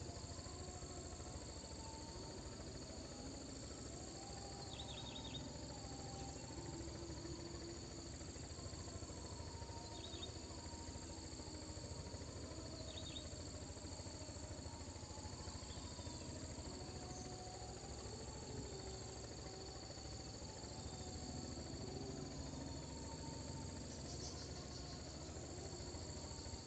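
Evening insect chorus: crickets trilling as two continuous high, steady tones, with a few short chirps at intervals over a low background rumble.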